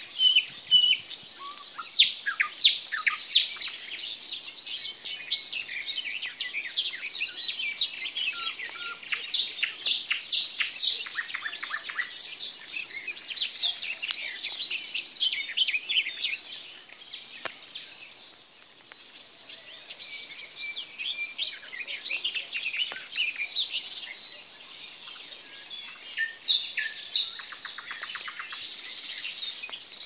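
A chorus of songbirds singing and calling, with many short chirps and trills overlapping throughout. It thins briefly a little past the middle.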